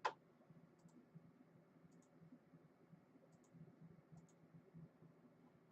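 Near silence broken by a sharp click at the start, then a few faint, light clicks, several in close pairs, about one every second or so.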